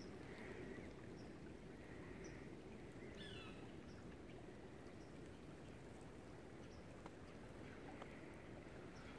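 Faint bird calls: short high chips about once a second, and a brief falling call about three seconds in, over a low steady hiss of outdoor ambience.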